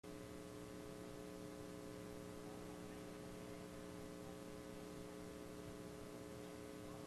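A steady hum made of several unchanging tones, over an even hiss.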